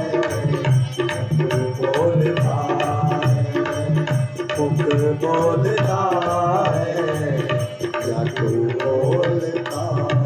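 Bhajan music without singing: tabla playing a steady rhythm under a gliding melody line.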